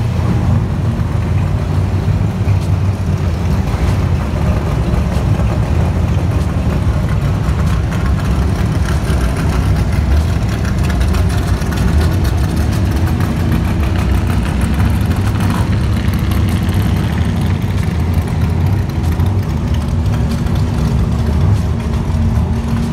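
Classic car's engine running as it creeps along at low speed, heard from inside the cabin: a loud, deep, steadily pulsing rumble.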